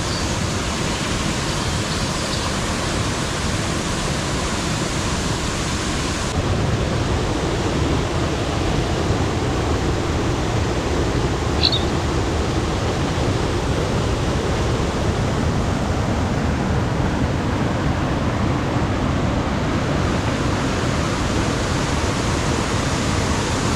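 Waterfall: water falling and splashing into a pool, a steady loud rushing that grows a little louder after about six seconds.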